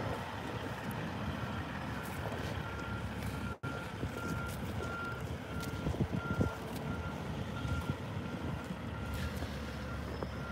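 Semi truck's backup alarm beeping at a steady pace, about three beeps every two seconds, as the truck reverses. The low rumble of its diesel engine runs underneath.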